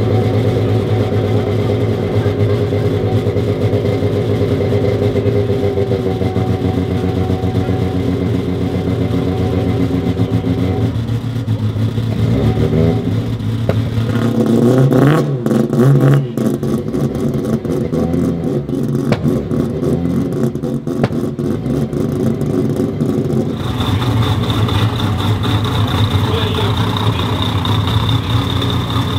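Mazda RX-7's naturally aspirated, peripheral-ported 26B four-rotor engine idling, its revs rising in blips about halfway through. It runs choppy and uneven for several seconds, then settles back into a steady idle near the end, with a high steady whine added.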